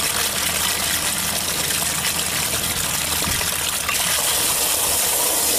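Water gushing and spraying from an Apex Xcess trough valve into a concrete stock trough as its cap is screwed back on, with the water supply still on. A steady rush of water.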